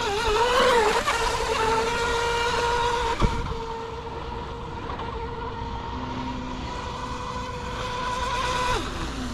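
Tenshock brushless motor of a mini mono RC speedboat whining at a steady high pitch at full throttle on a top-speed run with an Oxidean Marine 3419 propeller. The pitch wavers briefly about half a second in, holds steady, then falls sharply near the end as the throttle comes off, with one sharp click about three seconds in.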